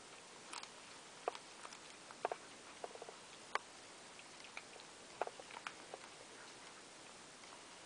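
Siamese cat eating dry kibble from a stainless steel bowl: faint, irregular crunches and clicks of food against the metal, dying away about six seconds in.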